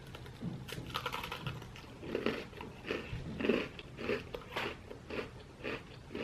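Person chewing a peanut butter Oreo cookie, with short crunches about twice a second.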